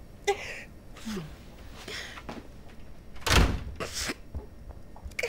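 A woman crying: short whimpering sobs and sniffs, with one dull thump about three seconds in.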